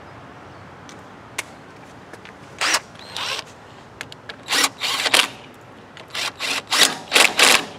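Cordless power driver run in about ten short trigger bursts, spinning in the bolts that hold the cooling fan onto a Briggs & Stratton twin-cylinder engine's flywheel. The bursts begin a little over two and a half seconds in and come closer together towards the end.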